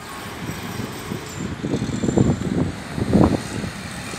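Road traffic at a city intersection: cars driving and turning, with a steady wash of noise that swells irregularly.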